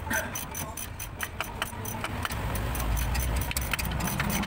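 A quick, uneven run of sharp metallic clicks from a wrench being worked on a fitting at the steering rack underneath the car, over a low rumble in the background that swells about halfway through.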